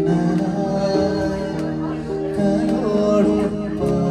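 Music with held, layered notes that change about every second, and a melody line that slides in pitch.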